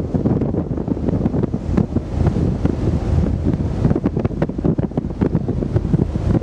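Wind buffeting the microphone on a ferry's open deck: a loud, gusty rumble with frequent pops.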